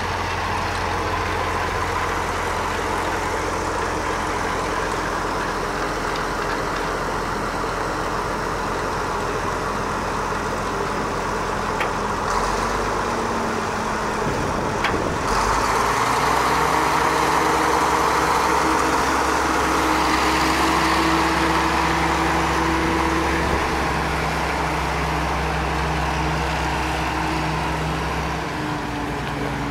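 Caterpillar 120 motor grader's diesel engine running steadily. About halfway through its note changes and it gets a little louder.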